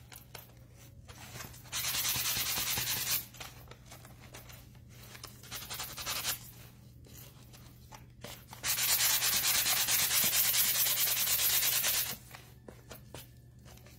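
Hand sanding the edges of a rice-paper-covered cardboard panel with a cut-up sanding pad, taking the overhanging paper off to a clean edge. A short run of strokes about two seconds in, lighter rubbing in the middle, then a long steady run of sanding from about nine to twelve seconds.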